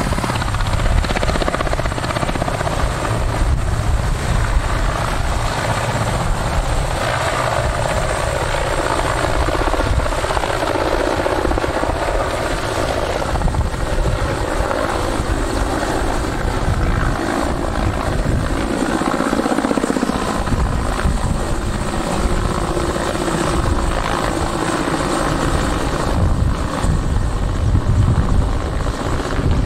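Helicopter in flight, a loud steady drone of rotor and engine.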